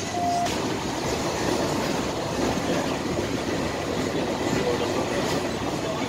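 Passenger train running fast, heard from inside the carriage: a steady, even running noise.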